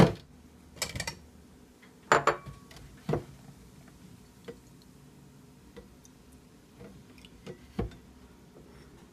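A few sharp knocks and clinks of a glass bowl and containers being handled and set down on a kitchen countertop, most of them in the first three seconds and one more near the end, with quieter handling sounds in between.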